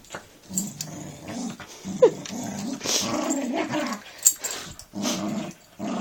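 Dog growling in long rough rumbles over a toy, with a brief high falling squeal about two seconds in and a sharp click a little after four seconds.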